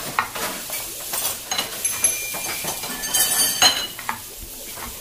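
Metal utensils clinking and scraping against a pan over steady sizzling, with sharp clicks throughout and the busiest clatter about three seconds in.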